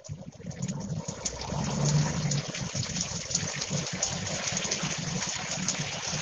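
Heavy rain pouring down, a dense steady hiss full of small splashes, with a low rumble underneath; it comes in abruptly at the start.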